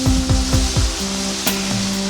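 Background music with a steady beat of deep drum hits and held bass notes that change pitch about a second in, over a steady hiss.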